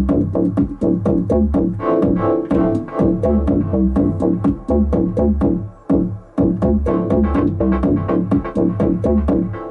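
Live electronic house music from a hardware rig: an Akai MPC1000 drum-machine beat with steady hi-hat ticks, under a synth bass line and sustained chords. The beat briefly drops out about six seconds in and comes back.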